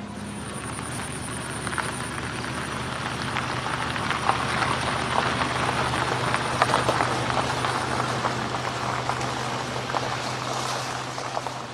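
Minivan rolling slowly over a gravel driveway: tyres crunching on the gravel over a low steady engine hum. It grows louder toward the middle and eases off near the end.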